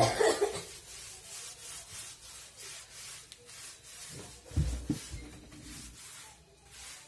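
Faint rubbing and rustling, like a hand or fabric brushing against a surface, with a dull low thump about four and a half seconds in.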